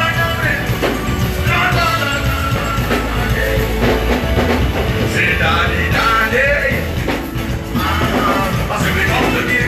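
Live band playing an upbeat gospel song, with drum kit and bass under a bending melodic lead that comes in short phrases every couple of seconds.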